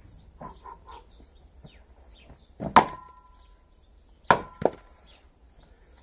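Axe biting into a firewood log on a chopping block: one sharp strike with a brief metallic ring about three seconds in. Then two heavy knocks close together as the axe, with the log stuck on it, is slammed down on the block and the log splits. Birds chirp faintly behind.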